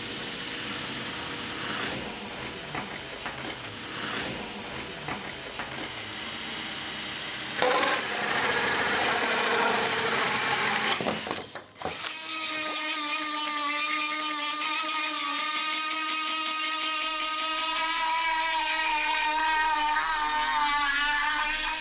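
Power tools working fibreglass. A drill spins a cup brush against the panel in a loud, noisy grind. From about halfway on, a small handheld rotary tool with a burr gives a steady high whine whose pitch wavers under load, then cuts off suddenly at the end.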